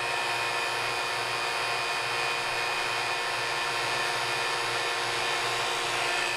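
Wood lathe spinning a bowl on a vacuum chuck at about 710 RPM, with the vacuum pump running under full suction: a steady machine whir with a low hum that pulses about twice a second.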